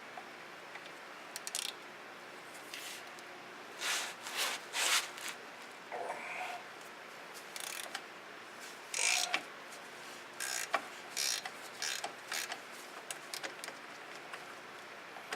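A ratchet working on the 13 mm bolts that hold the front wheel hub bearing in place, running in short bursts with pauses between.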